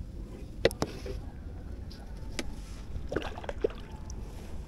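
A few sharp clicks and knocks from fishing gear being handled on a wooden boat, with several in quick succession about three seconds in, over a low steady rumble.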